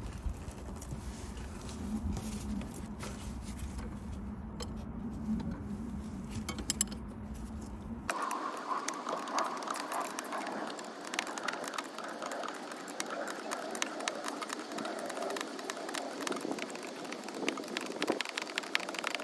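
Light metallic clicking and ticking of a spanner working the brake line nuts on an ABS hydraulic unit. The clicks are dense after an abrupt change about eight seconds in. Before that there is a low steady background rumble.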